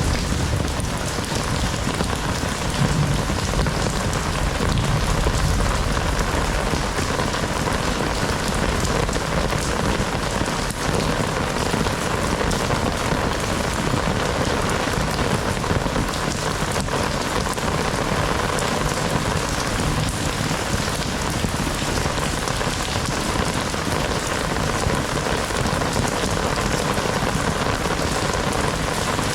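Heavy rain falling steadily, a dense even hiss with spattering drops on surfaces.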